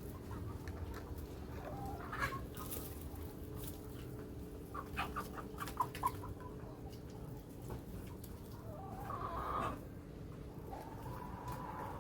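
Village chickens clucking in short scattered calls, with a louder run of clucks about midway, over a steady low hum.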